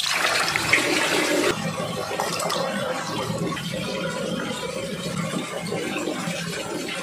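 Running water splashing, louder for the first second and a half, then steady.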